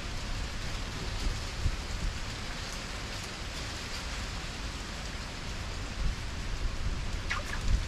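Steady outdoor noise: an even hiss over a low rumble, with a couple of faint short chirps near the end.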